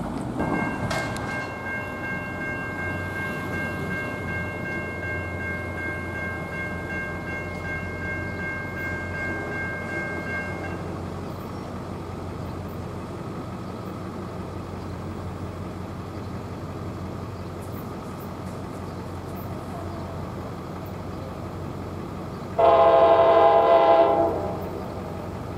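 NJ Transit PL42AC diesel locomotive's multi-chime air horn on an approaching train, sounding one blast of about a second and a half near the end. Before it, a steady high ringing tone over a low rumble stops about ten seconds in.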